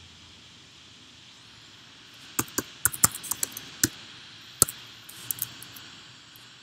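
Computer keyboard keys clicking in a quick, irregular run of about a dozen strokes, starting a couple of seconds in and lasting about three seconds, over a faint steady hiss.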